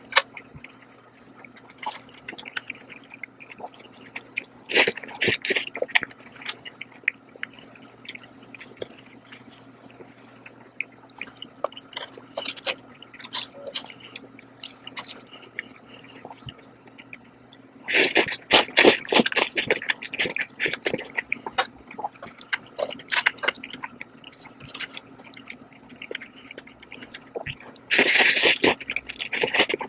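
Close-miked eating of saucy jjajang noodles: wet chewing and lip smacks, with loud slurps of noodles about five seconds in, around eighteen to twenty seconds, and again near the end.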